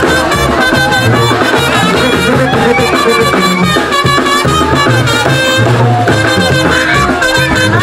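A brass band playing a folk dance tune, with drum and a sousaphone bass line repeating under the melody.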